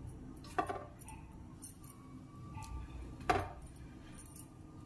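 Two light knocks against a metal kadhai, about three seconds apart, as raw mathri dough discs are put into medium-hot oil for deep-frying.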